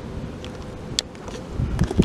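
Wind buffeting the microphone, stronger about three quarters of the way in, with a few short sharp clicks; the last clicks come as a hand takes hold of the car's chrome door handle.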